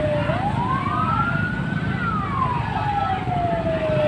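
Fire engine siren wailing, one slow cycle of about four seconds: it rises quickly, falls slowly, and starts to rise again near the end, over a steady low rumble.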